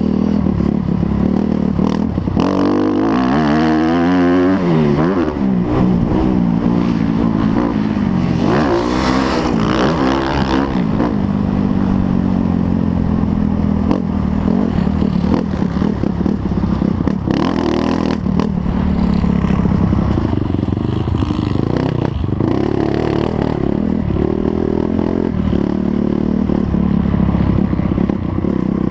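Motocross motorcycle engines running hard, their pitch rising and falling as the bikes rev and go past, most strongly a few seconds in and again around ten seconds in.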